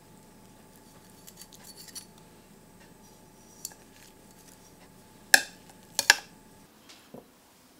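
Metal kitchen tongs clinking as squares of fried tofu are set onto a ceramic plate: a few light ticks, then three sharp clinks in quick succession a little past halfway, and one softer tap near the end.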